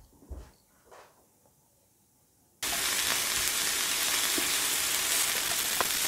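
Thin slices of raw marbled beef sizzling on a hot electric grill plate as they are laid down with chopsticks; the steady sizzle starts suddenly about two and a half seconds in, after a few faint short sounds.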